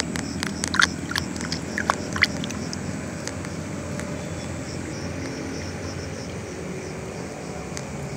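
Night insects chirping in a steady rhythm of about four or five pulses a second, over a low steady rumble. A few sharp clicks and rustles sound in the first two seconds or so.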